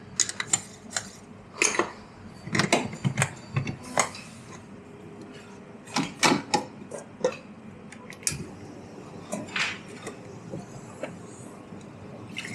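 Irregular clinks and knocks of cups, dishes and metal tools being handled at an espresso bar, coming in quick clusters with short gaps between.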